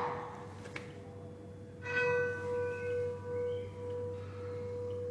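Harmonically tuned church bell, pitched around B, sounding its hum note, the lowest partial, as a steady pure tone. About two seconds in, a cluster of higher bell tones sounds briefly and fades, while the hum note carries on with a slow waver.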